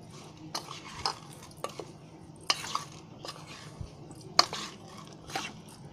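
A steel spoon scraping and clinking against a metal bowl while stirring boiled potato cubes coated in ground peanuts and sugar, with irregular taps and scrapes every half second or so.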